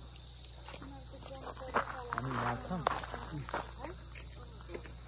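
Chorus of crickets chirping in a steady, unbroken high-pitched drone.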